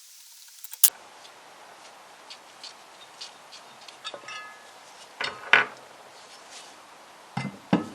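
Metal clinks and knocks as the engine stand adapter plate and its bolts are taken off a Classic Mini engine block. There is a sharp knock about a second in and a short metallic ring about four seconds in, and heavier clunks a little past five seconds and again near the end.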